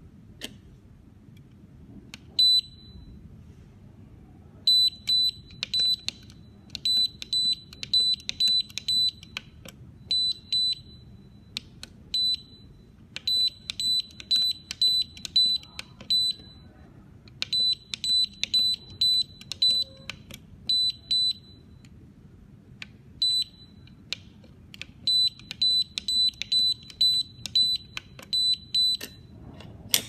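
YOSEC electronic fingerprint safe lock keypad beeping as a code is typed in: one short, high beep for each key press. The beeps come in quick runs of several, separated by pauses, as a new user password is entered and then entered again to confirm it.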